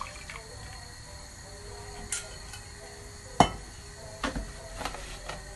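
Kitchenware clinking against a pan: a handful of sharp, separate clicks and knocks, the loudest about three and a half seconds in.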